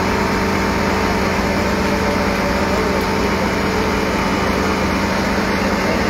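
Recovery crane's engine running steadily at a constant speed, a continuous even drone with a steady hum.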